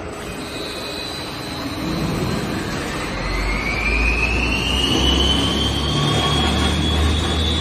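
ALCK6150X1500 CNC lathe starting up: a whine rises in pitch and levels off as the machine comes up to speed. A low hum grows beneath it.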